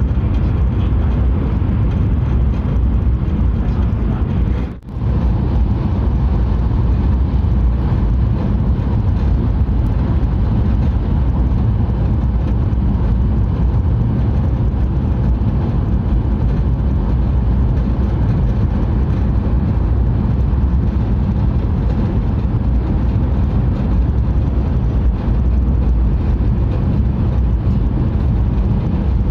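Steady low rumble of a Hayabusa shinkansen running at speed on the Tohoku Shinkansen, heard inside the passenger cabin, with a momentary break about five seconds in.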